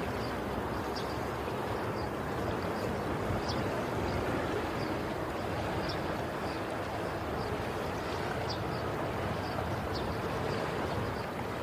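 Steady rushing noise of churning, splashing water, with faint short high-pitched peeps recurring every half second or so.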